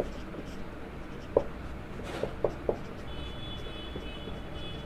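Marker pen writing on a whiteboard: quiet strokes with four sharp taps of the tip against the board around the middle, and a faint thin high tone in the last second or two.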